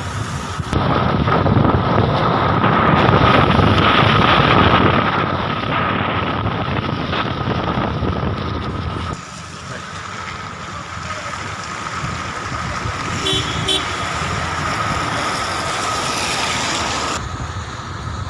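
Outdoor street noise of wind buffeting the microphone and road traffic, changing abruptly about a second in, about nine seconds in and near the end where shots are cut together. A faint steady high tone runs underneath.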